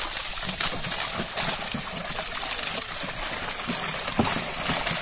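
Water splashing and sloshing as fish thrash in a net pulled tight in shallow water, with many quick, irregular splashes and drips.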